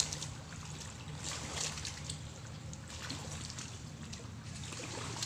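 Water trickling and lapping, with scattered faint splashes and a low steady rumble underneath.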